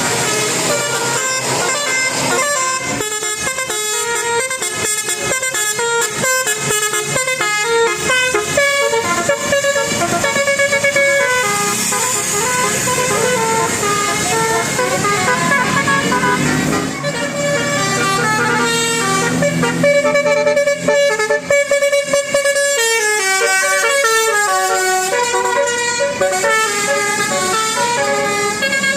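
Indonesian bus telolet (basuri) air horn playing a tune of quick stepped notes in repeated runs, with some longer, lower held notes about two thirds of the way through.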